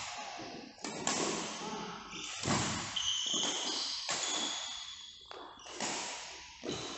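Badminton rally: sharp smacks of rackets hitting the shuttlecock about every one and a half seconds, with court shoes squeaking on the floor between the hits.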